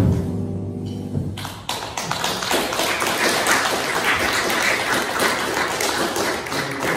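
The quartet's final chord of piano, guitar and upright bass rings out and dies away. About a second and a half in, a small audience starts applauding.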